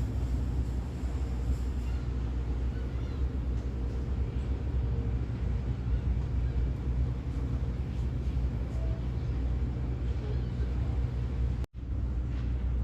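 A large engine running steadily with a low, even drone. The sound cuts out for an instant near the end.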